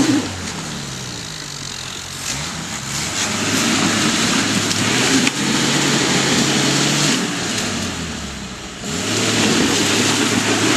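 Off-road 4x4's engine working through muddy ruts, its revs easing, climbing again about a third of the way in, dropping and then rising once more near the end.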